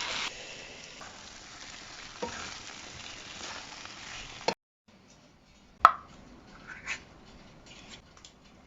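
Vegetables and spices frying in olive oil in a pan, sizzling steadily, with a couple of small knocks as they are stirred. The sizzle cuts off abruptly about halfway through, followed by one sharp click and a few faint ticks.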